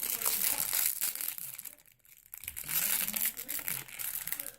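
Plastic toy wrapper crinkling and rustling as it is worked open by hand, in two stretches with a short pause about two seconds in.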